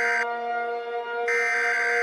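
Electronic alarm buzzing in on-off bursts of about a second, roughly every two seconds, over a steady sustained drone of held tones. One burst cuts off just after the start and the next begins a little past halfway.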